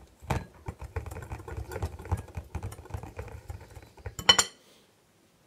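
Wire whisk beating pancake batter in a glass bowl: a rapid run of clicks and knocks of the wires against the glass, with one loud sharp clink about four seconds in, after which the whisking stops.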